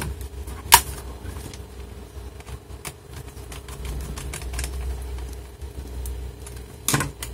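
Clicks and taps of the flimsy RAM access cover on the underside of a Dell Inspiron 14z laptop being pressed back into place by hand, with a sharp click under a second in and another near the end, and low rubbing of hands on the case between.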